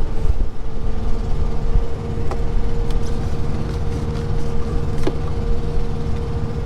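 Steady low diesel rumble with a constant hum, like a heavy truck idling, with a few light clicks over it.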